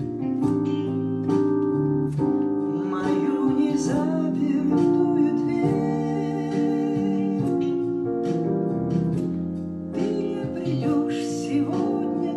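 Music: a song's accompaniment of held keyboard chords, with some guitar.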